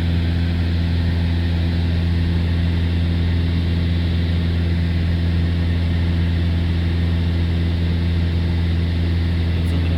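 Steady drone of a propeller airplane's engine inside the cabin: a deep, unchanging hum with overtones.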